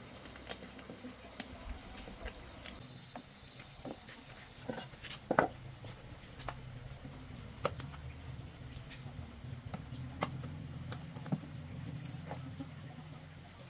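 Scattered clicks, taps and knocks of hand tools working small metal engine parts of a motorcycle, with one louder knock about five seconds in, over a steady low hum.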